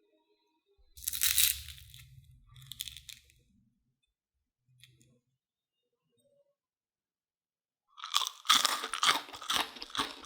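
Crispy fried potato rings being bitten and chewed up close: a loud crunch about a second in and a smaller one near three seconds, then a quiet gap, then rapid, dense crunching from about eight seconds.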